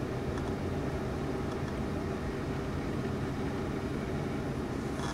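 Steady low hum with a faint hiss: background room noise, such as a fan or air conditioner. No distinct sound from the soldering stands out.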